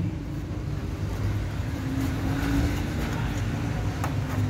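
A steady low background rumble, with a few small clicks of a plastic panel-mount fuse holder being unscrewed by hand, one about four seconds in.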